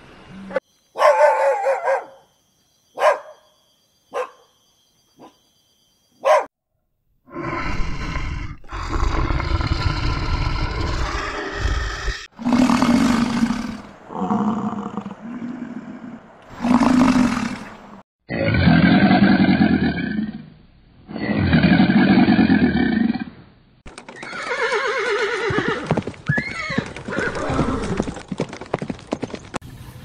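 A series of separate animal calls: a few short, sharp calls in the first seconds, then longer, loud, pitched calls one after another, each lasting one to three seconds.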